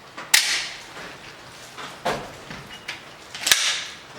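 Two shots from a Benelli M4 12-gauge semi-automatic shotgun firing slugs, about three seconds apart, each a sharp report with a short ringing tail, and a softer knock between them.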